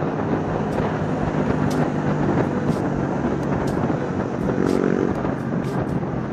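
Motorcycle riding along a road, its engine running steadily under wind and road noise as heard from the bike itself.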